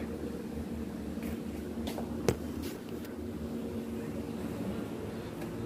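Steady hum of a motor running, such as a fan, with a few faint ticks and one sharp click a little over two seconds in.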